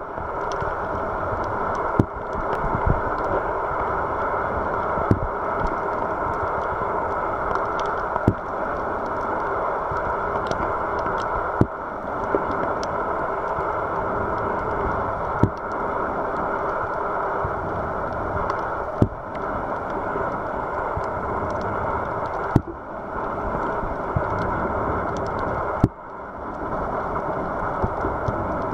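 Muffled underwater rush of a camera held just below the water surface while snorkeling, a steady dull hiss with a short click roughly every three to four seconds.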